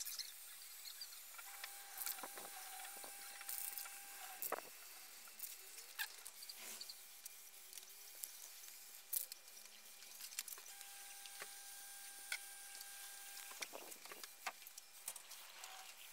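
Faint steady hiss of an aerosol spray-paint can being sprayed, with scattered light clicks and taps.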